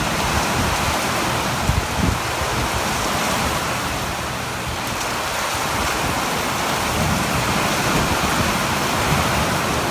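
Heavy rain falling steadily on pavement and the roof overhang.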